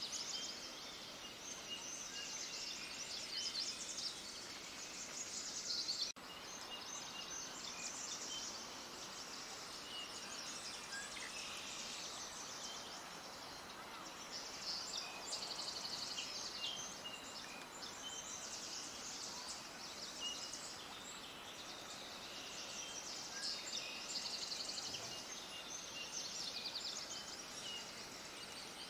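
Small songbirds chirping and trilling in rapid high-pitched bursts, overlapping with no let-up, over a steady background hiss. There is a brief dropout about six seconds in.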